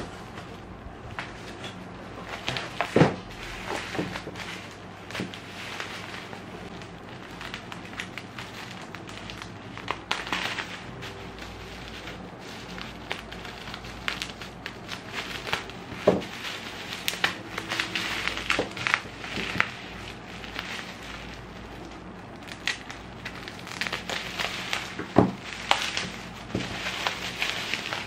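Plastic bubble wrap crinkling and crackling as a padded album package is handled and cut open with scissors, with a few sharp knocks.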